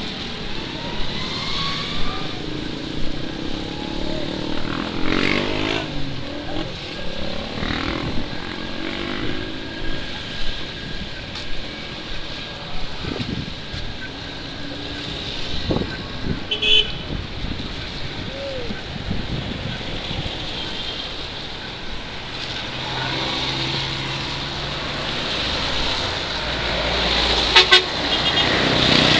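Road traffic at a busy intersection, with motorcycles and cars passing and a few short horn toots. Near the end a heavy truck's engine grows louder as it comes close.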